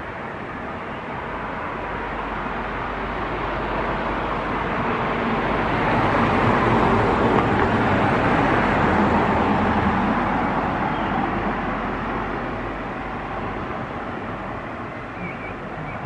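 A road vehicle passing by, its steady road and engine noise growing louder to a peak about halfway through and then fading away.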